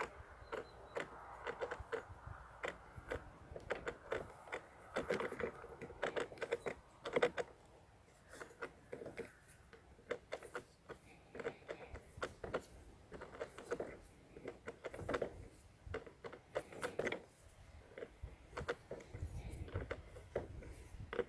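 A ring spanner tightening plastic number-plate nuts and bolts on the spiked drive wheel of a Flymo 1200R robot lawnmower: a long run of irregular light clicks and taps as the spanner works the nuts.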